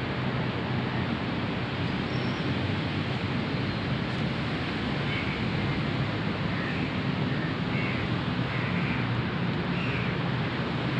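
Steady rush of a flowing river, an even wash of water noise that holds at one level.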